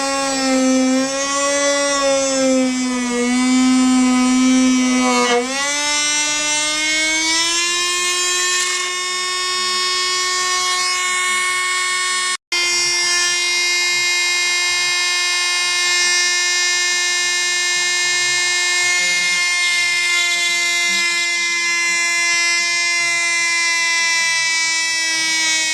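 Small electric drill motor whining steadily while drilling holes in a Martin D-45 guitar neck to fix a crack. Its pitch sags lower for the first few seconds, rises between about five and eight seconds in, then holds steady. The sound drops out for an instant about halfway.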